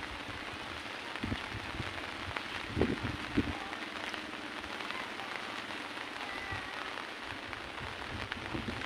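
Rain falling steadily, an even hiss, with a few short low thumps, the loudest about three seconds in.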